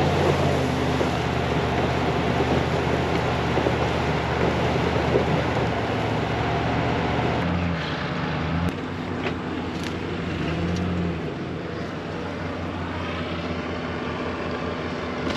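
A vehicle engine running steadily. About halfway through its note changes and the sound drops a little.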